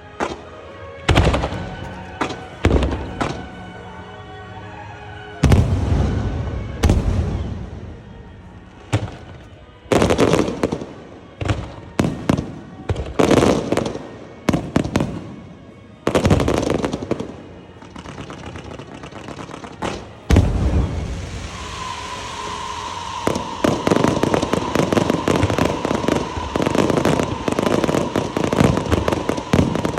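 Aerial firework shells go off one after another, each a loud boom with a long echoing tail. About twenty seconds in, this gives way to a dense, continuous crackling barrage with a steady high whistle running through it.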